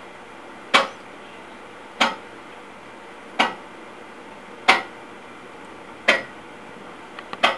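Six sharp clicks or knocks at a slow, even pace, about one every 1.3 seconds, each with a short ring, over faint steady hiss.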